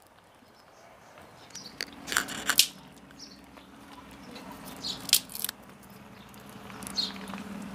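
Small wood-chip and charcoal fire crackling in a clay pocket stove under a pan of frying potatoes, a few sharp snaps over a low steady sizzle.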